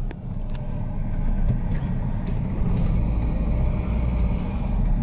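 Steady low rumble of a vehicle driving, its engine and road noise heard from inside the cab, with a few faint rattles.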